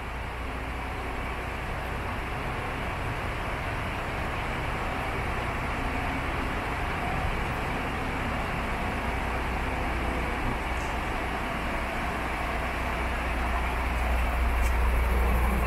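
MAN TGX 26.540 truck's 12.4-litre straight-six diesel idling steadily, growing louder near the end.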